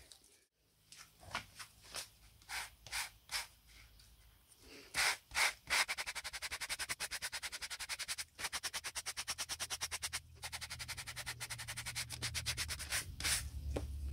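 Abrasive sanding sponge scrubbed over thin metal strips to clean them. It starts with a few slow, separate strokes, then goes into a fast, even back-and-forth of roughly eight strokes a second, broken twice by short pauses.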